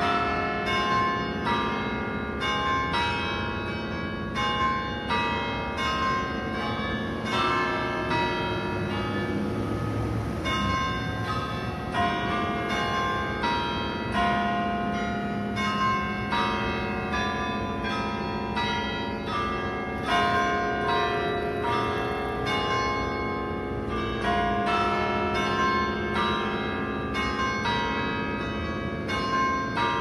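Church bells pealing, several bells of different pitches struck one after another at about two strokes a second, each ringing on into the next.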